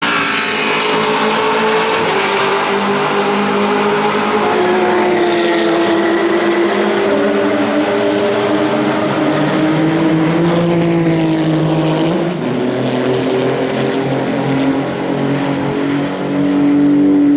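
Maserati GranTurismo MC Corsa race car's V8 engine running loud on track. Its pitch wanders up and down, dips about twelve seconds in, then climbs and grows louder near the end.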